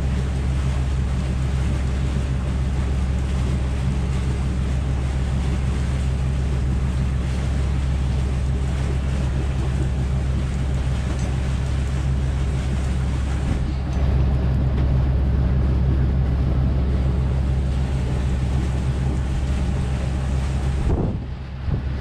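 Sailboat's auxiliary engine running steadily under way, a low drone, with wind and water rushing past the hull and over the microphone.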